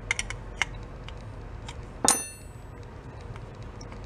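Light clicks of small metal parts handled while a brass needle screw is turned by hand into a Briggs & Stratton carburetor body. About two seconds in, a sharp metallic clink rings briefly.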